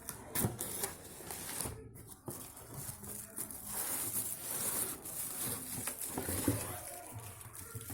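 Unboxing handling noises: irregular rustling with scattered light clicks and knocks as the packaging and flask are handled.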